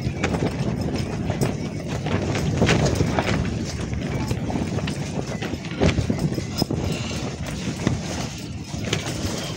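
Strong wind gusts rumbling on the microphone, with many irregular flaps and knocks, typical of tent fabric being shaken by the wind.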